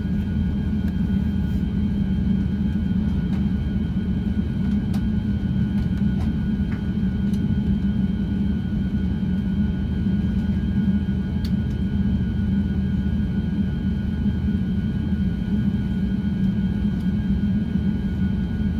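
Steady cabin rumble inside an Airbus A350-900 with its engines running at low power, a deep even drone with a thin steady high whine over it and a few faint clicks.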